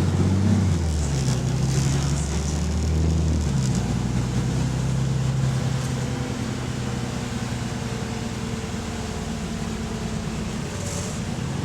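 Bus engine running under way with an exhaust leak. Its low drone changes note twice in the first few seconds, then runs steadily.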